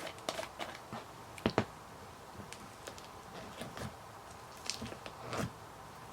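Slime with foam beads being poked and squished by hand, making irregular small crackles and squelches, loudest as two sharp clicks about one and a half seconds in.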